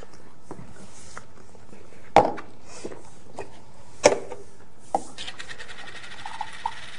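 A few sharp knocks and taps on a tabletop, the loudest about two and four seconds in, over low room noise.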